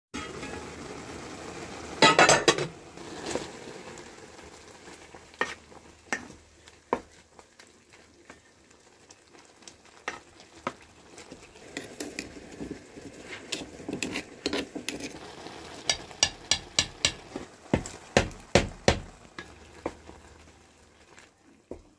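Metal pot lid clattering about two seconds in, then a wooden spatula stirring spinach, leeks and garlic as they sizzle in the metal pot, knocking against its sides, with a quick run of taps near the end.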